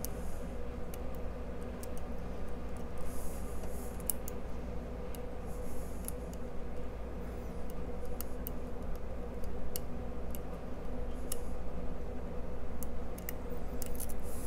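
Lock pick working the pins of a Codkey Locksys L52 cylinder under tension: scattered light ticks and a few short scratches, over a steady hum.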